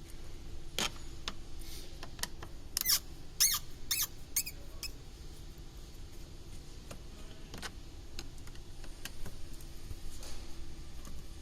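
Plastic door-card trim parts being worked apart with a screwdriver, making short squeaks and sharp clicks. A quick cluster of squeaks comes about three to five seconds in.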